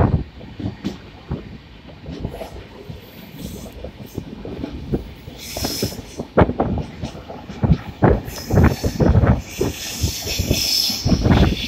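Indian Railways passenger coach running, its wheels clacking irregularly over rail joints and points. From about halfway a rushing hiss of wind on the microphone grows louder, with the phone held out at the open window.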